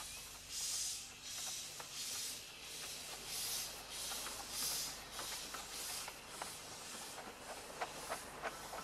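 A 15-inch-gauge steam locomotive pulling away, its exhaust chuffing in steady hissing beats about twice a second. From about two-thirds of the way in, sharp clicks of the wheels over the rail joints join the chuffs.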